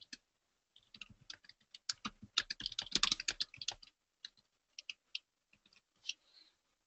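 Typing on a computer keyboard: a quick run of keystrokes in the middle, then scattered single key clicks.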